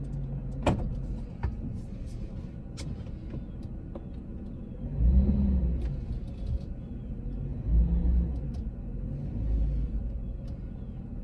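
Chevy Silverado pickup engine running, heard from inside the cab as the truck pulls away, with low swells in the rumble about five and eight seconds in as it is given gas. A few sharp light clicks come in the first three seconds.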